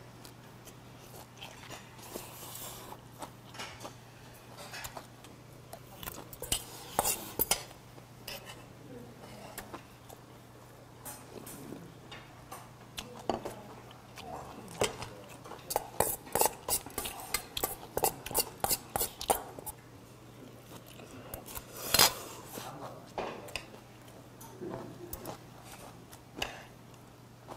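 Metal utensils clinking and scraping against a stainless steel bowl of mixed barley rice as it is stirred and eaten. The clicks are scattered, come thick and fast through the middle, and one sharp clink near the end is the loudest.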